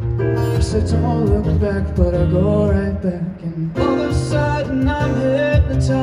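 Live pop song: a man singing with a Nord Stage keyboard and an acoustic guitar. The vocal line stops a little past halfway and comes back louder about a second later.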